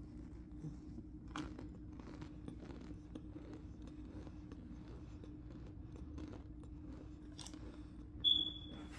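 Soft, irregular crunches and crackles of packed cornstarch. One short, high-pitched squeak-like tone about eight seconds in is the loudest sound.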